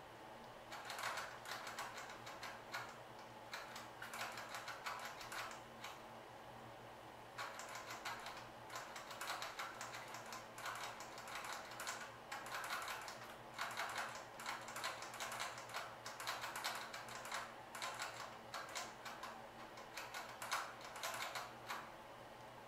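Bursts of rapid dry crackling and clicking from a mother rat in her nest of shredded paper bedding, with a pause about six seconds in.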